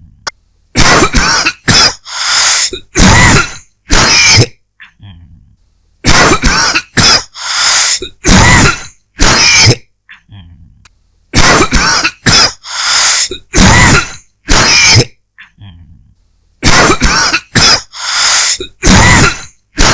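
A person dry coughing in repeated fits: four bouts of about five coughs each, separated by short pauses.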